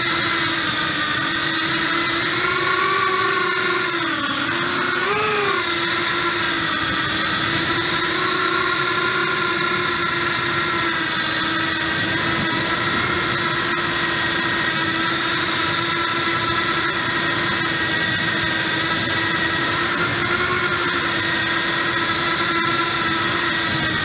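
Skystars Angela145 cinewhoop's brushless motors and ducted propellers whining steadily in flight, close on the onboard camera's microphone. The pitch wavers and dips for a moment about four to six seconds in as the throttle changes, then holds steady.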